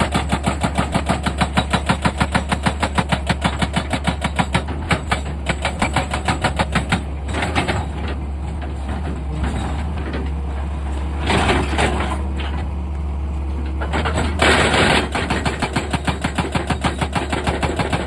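Excavator-mounted hydraulic rock breaker hammering rapidly at about ten blows a second, over the excavator's steady engine hum. The hammering stops for several seconds in the middle, broken by two short louder bursts of noise, then starts again near the end.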